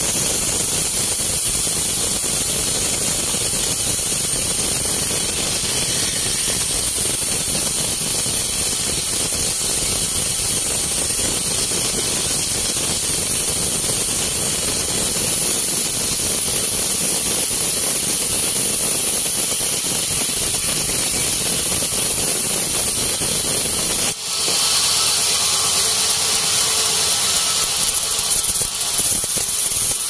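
Horizontal band sawmill sawing through a teak block: a steady, noisy rasp of the blade in the wood with a high hiss. About 24 seconds in it dips for an instant and carries on with less low rumble.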